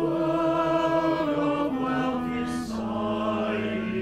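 Tenor voice singing a slow operetta phrase with vibrato, the melody stepping down note by note.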